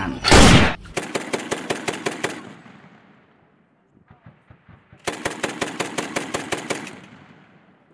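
Imitation machine-gun fire: two rapid bursts of about nine shots a second, each trailing off, after a loud short rush of noise at the very start.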